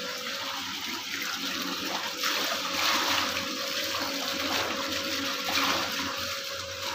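Water sloshing and churning in a washing machine tub as it washes clothes, in swells, over a faint steady motor hum.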